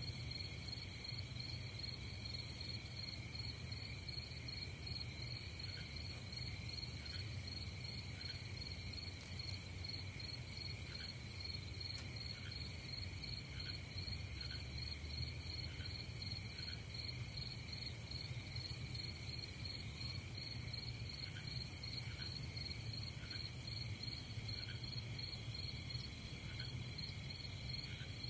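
Steady nighttime chorus of crickets and other insects, a continuous high pulsing trill. A faint short call repeats about every second or so, over a low steady hum.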